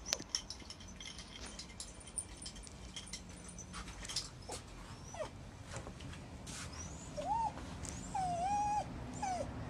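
Shiba Inu whining in short, high whimpers, three of them in the last few seconds, the longest drawn out for nearly a second, as it hangs around a cat that holds it off. Before that, light clicks and taps of paws on the tiled floor.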